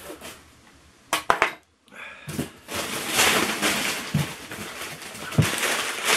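Paper wrapping rustling and crinkling as newly bought items are unwrapped, from about two seconds in, with a couple of dull knocks. It comes after a few sharp clinks about a second in.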